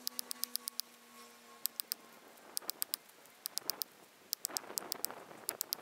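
Axe chopping into a large tree trunk: dull strikes about once a second, most clearly in the second half, over a quick, faint high clicking.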